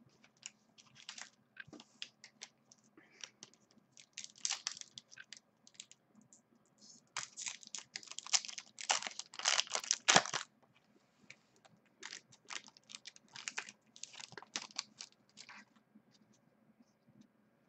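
Foil trading-card pack wrappers crinkling and tearing as packs are torn open by hand, in irregular rustling bursts that are loudest about seven to ten seconds in.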